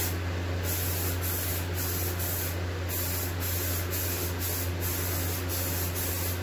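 Aerosol can of Rust-Oleum Peel Coat hissing as it lays a wet coat onto a plastic ATV tank cover. The hiss runs in quick sweeping passes with brief breaks about twice a second.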